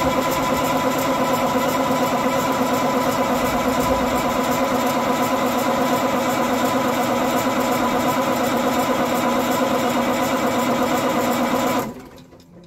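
Starter cranking the Cummins Big Cam inline-six diesel in a steady, fast, even rhythm for about twelve seconds, then stopping abruptly when the starter is released. The engine does not fire; there is no sign that the rebuilt fuel pump is drawing fuel.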